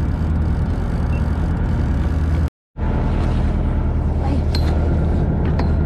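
Fishing boat's engine running steadily with a low hum, cut off for a moment about two and a half seconds in.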